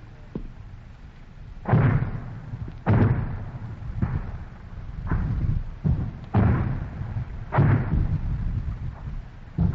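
German artillery fire on a 1944 field recording: a run of about six heavy booms, roughly one every second or two, each trailing off in a low rumble.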